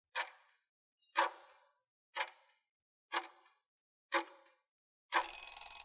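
Countdown-timer sound effect ticking once a second, five sharp ticks, then a longer sound of under a second about five seconds in as the countdown runs out.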